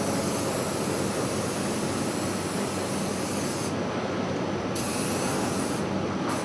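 Aerosol spray-paint can spraying in long hisses: one long spray breaks off just under four seconds in, a shorter spray follows about a second later, and a brief burst comes near the end. A steady background rush runs underneath.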